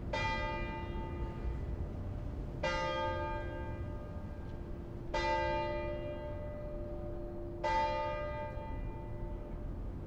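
Church bell of Tallinn's Dome Church (St. Mary's Cathedral) tolling, struck four times about two and a half seconds apart, each stroke ringing on and fading away.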